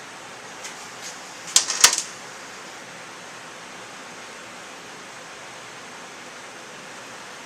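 A few sharp clinks close together about a second and a half in, over a steady hiss: small metal engine parts or hand tools knocking together while the cam sprocket is being fitted back onto the cam chain.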